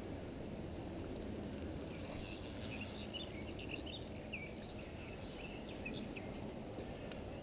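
Outdoor pond-bank ambience: a steady low background hum of noise with small birds chirping in short, scattered calls, mostly in the middle seconds.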